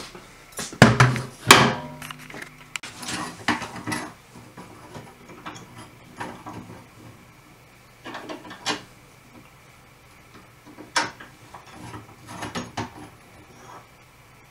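Metal clanks and knocks from a bow saw and a bench vise being handled as the saw's frame is clamped in the vise: a cluster of sharp knocks about a second in, then scattered lighter clunks.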